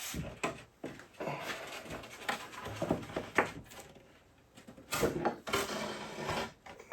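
Irregular rustling and scraping handling noises with scattered clicks and knocks, broken by short pauses.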